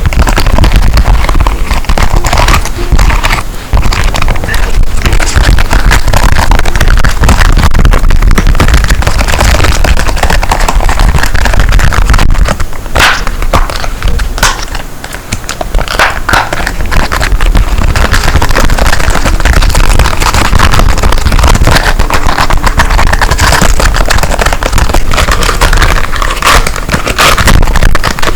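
Loud, dense crackling and clicking with a low rumble underneath, from objects rubbed and handled right against the microphone. It eases off somewhat about halfway through.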